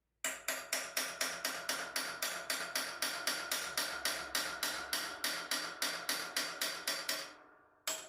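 Rapid, evenly spaced metal-on-metal hammer blows, about five a second, each ringing briefly, fading out near the end. This is an attempt to drive a stuck bearing out of an alternator's end housing, and the bearing does not come free.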